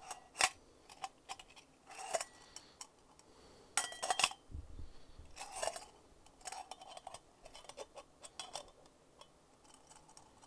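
Scattered light clicks and clinks of small hard containers being handled on a desk: a glass brush-cleaner jar and its lid. The densest cluster comes about four seconds in.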